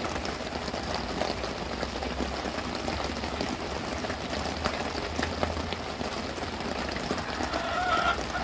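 Heavy rain falling steadily on a tarp overhead: a constant hiss of many small drop hits, with a low rumble underneath.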